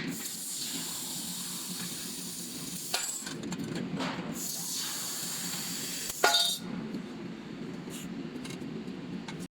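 Handheld fiber laser working on metal: a crackling high hiss in two stretches, the first about three seconds long and the second about two, with a sharp click near the end of the second.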